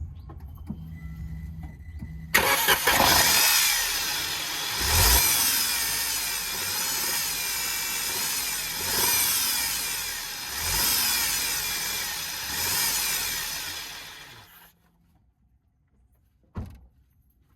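2013 Peugeot 208 1.2 VTi three-cylinder petrol engine running with its auxiliary drive belt fitted. It comes in suddenly and is revved four times, with a noise that rises and falls in pitch with the engine speed. The engine then dies away and stops, and a single click follows near the end.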